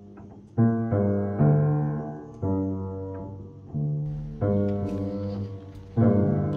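Background music: slow, low instrumental notes, a new one struck about once a second, each fading before the next.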